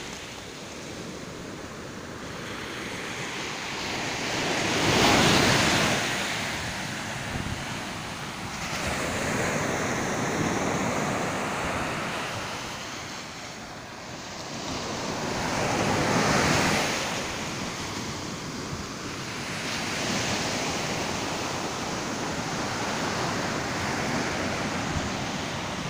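Ocean surf breaking and washing up a sandy beach, swelling and fading with each wave, loudest about five seconds in and again around sixteen seconds. Wind buffets the microphone.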